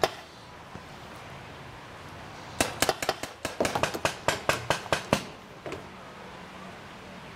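Paintball markers firing a rapid, uneven string of about fifteen sharp pops lasting about two and a half seconds, starting a couple of seconds in.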